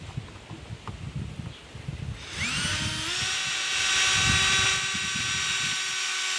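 Cordless drill spinning up with a quick rising whine about two seconds in, then running at a steady pitch for about four seconds as it backs screws out of a wooden end board, and stopping abruptly.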